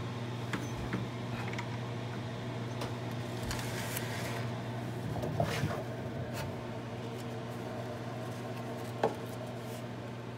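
Handling noises at a workbench: a few light clicks and taps, a cloth rustle about halfway through, and one sharper click near the end, over a steady low hum.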